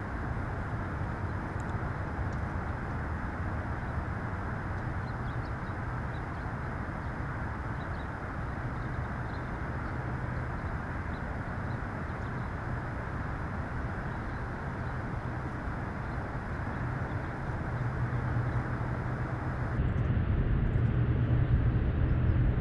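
Steady low outdoor background rumble, like wind on the microphone, growing louder over the last few seconds.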